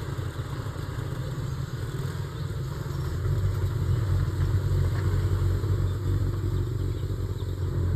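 Military jeep's engine running as the vehicle drives off, a steady low rumble that grows louder about three seconds in.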